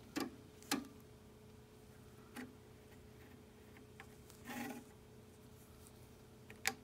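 Front-panel buttons of an E-mu Emax HD rack sampler being pressed: about five separate sharp clicks spaced a second or two apart, over a faint steady hum.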